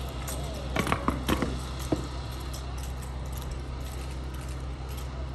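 Exhibition rifle drill: a handful of sharp slaps and knocks in the first two seconds, from rifles being handled and boots striking concrete, then only a steady low background rumble.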